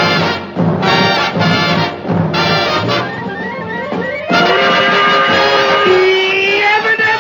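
Upbeat cartoon-style brass band music: a run of short punchy brass stabs, then held brass chords from about four seconds in.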